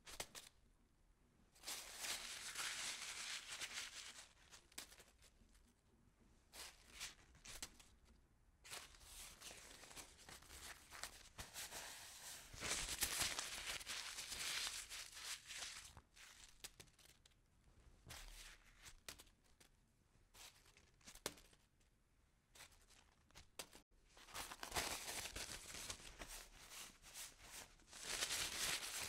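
Pencil lead scratching across paper as lines are drawn, in stretches of a few seconds with short pauses between strokes.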